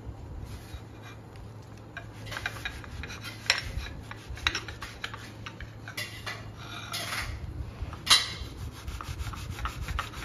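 Large kitchen knife sawing back and forth through a cooked chocolate waffle on a glass plate, a run of irregular rasping strokes as the blade cuts and scrapes the plate. The loudest scrape comes about eight seconds in.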